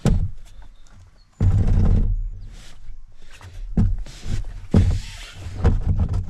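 Handling noise close to the camera: an irregular run of knocks, bumps and rubbing scrapes as the camera is moved and gear shifts on the paddle board.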